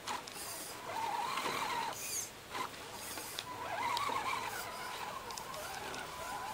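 Electric motor and gear whine of a scale RC rock crawler, rising and falling several times with the throttle as it climbs snow-covered rocks, with scattered clicks and crunches from the tyres.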